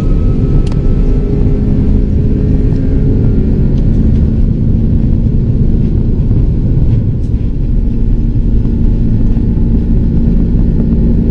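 Airbus A330-200's two Rolls-Royce Trent 772B engines at take-off thrust, heard from inside the cabin during the take-off roll: a loud, steady, deep rumble with a few faint knocks.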